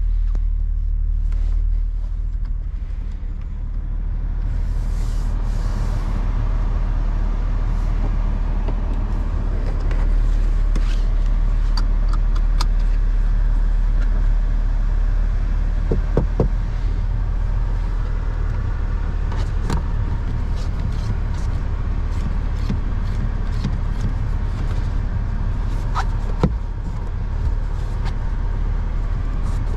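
Toyota GR Supra's 3.0-litre turbocharged inline-six running steadily, a low drone, with occasional sharp clicks scattered through it.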